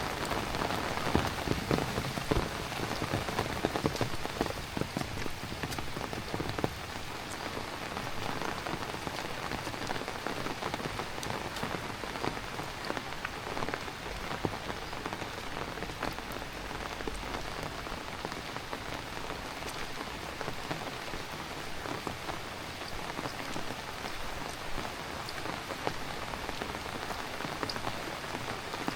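Heavy rain falling steadily: a dense hiss of drops with many close individual drop hits, a little louder in the first few seconds.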